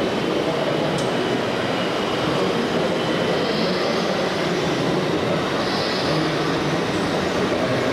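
Steady mechanical din from RC model construction machines and trucks working, with short hisses about every two and a half seconds.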